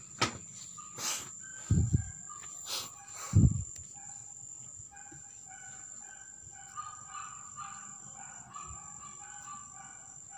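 Background ambience: a steady high-pitched insect drone, with a few sharp knocks and two dull thumps in the first four seconds, then scattered short bird chirps for the rest.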